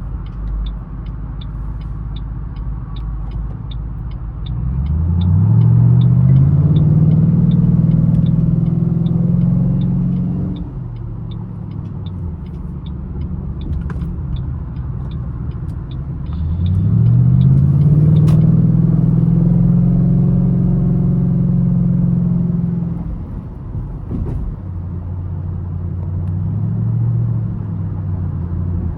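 2008 Ford Mustang GT's 4.6-litre V8 heard from inside the cabin, accelerating twice: the engine note climbs, holds for several seconds and drops off, once near the middle and again near the end. A steady fast ticking runs through the first half and then stops.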